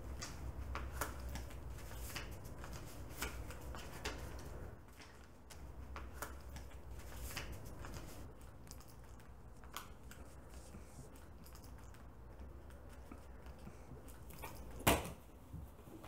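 Light clicks and rustles of a wallet being opened and searched by hands in latex gloves, over a low hum that drops away about five seconds in. One loud, sharp knock near the end.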